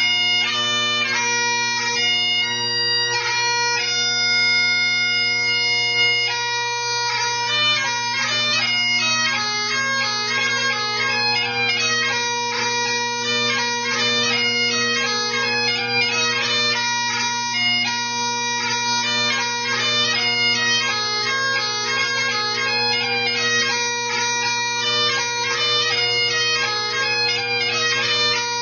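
Great Highland bagpipe playing a tune: steady drones under a chanter melody with quick grace-note ornaments.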